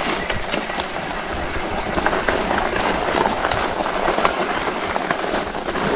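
ENGWE X20 off-road e-bike rattling and clattering as it rolls slowly down a rough dirt trail, with a steady run of small knocks and clicks. The bike has a front fork that the rider says clatters.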